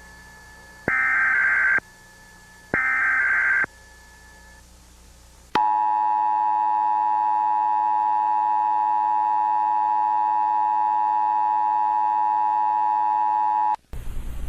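Emergency Alert System alert audio: the last two of the three SAME header data bursts, each a harsh warbling screech lasting about a second, a second apart. Then the two-tone attention signal sounds steadily for about eight seconds and cuts off near the end, where a different noisy sound starts.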